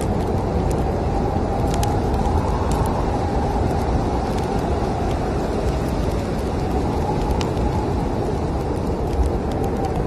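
Steady rumble of snowstorm wind with a slowly swelling howl, over a wood fire crackling with a few sharp pops.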